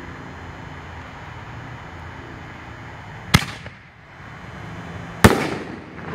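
A 1.5-inch canister firework shell being fired. A sharp boom from the lift charge launches it about three seconds in. About two seconds later comes the bang of the shell bursting in the air, which rings on longer as it echoes.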